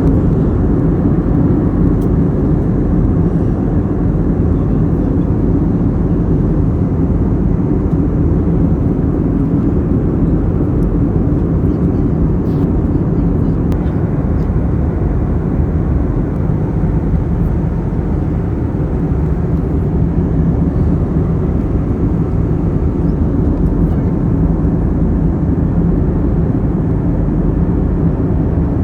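Steady low roar of an airliner's engines and rushing air, heard from inside the cabin, with a faint hum of steady tones underneath.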